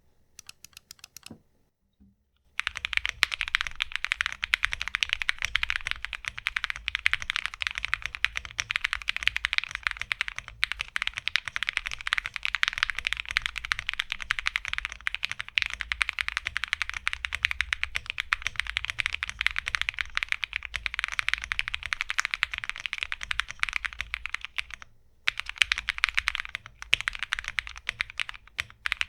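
Continuous fast typing on a plateless, gasket-mounted Glacier80 TKL mechanical keyboard with lubed Alpaca v2 linear switches and thick Osume Tsukimi PBT keycaps. A few scattered keystrokes open, the steady run of key clacks starts about two and a half seconds in, and there is a short break near the end.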